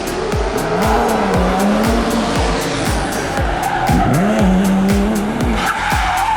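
Race-car engine sounds with tyre squeals and skids, mixed with background music that has a steady beat of about two per second. A held engine-like tone glides up and then levels off twice, about a second in and again about four seconds in.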